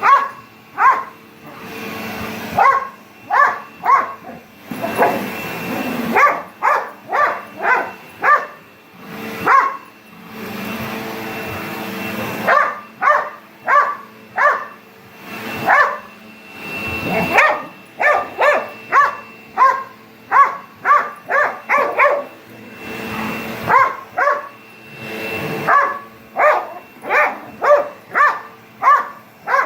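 A dog barking over and over in quick runs at a running vacuum cleaner, whose steady whine and suction noise carry on under the barks and come through most clearly in the short gaps between runs.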